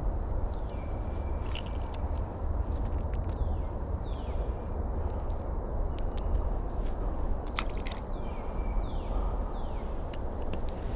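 Creek-side outdoor ambience: a steady low rumble with a steady high-pitched drone over it, short falling chirps repeating every second or so, and scattered sharp clicks and taps of handling.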